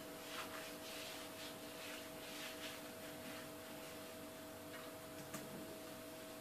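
Faint soft swishing and rubbing as melted butter-and-oil mixture is spread by hand over thin stretched börek dough, a few light strokes in the first half, over a steady faint hum.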